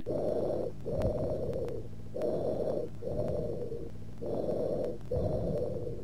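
Recorded tubular breath sounds, the high-pitched bronchial breathing classically heard over consolidated lung in lobar pneumonia. Three breaths, each a shorter inspiration, a short pause, then an expiration as long as or longer than the inspiration.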